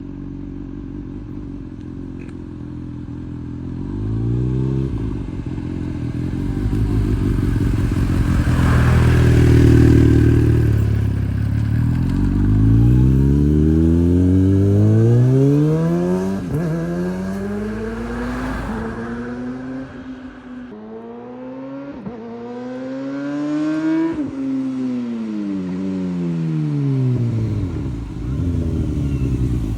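Kawasaki ZX-6R inline-four through an Akrapovič racing exhaust, idling at first and then revved. Its pitch climbs repeatedly and drops sharply, as at gear changes under acceleration, then rises once more and falls away near the end.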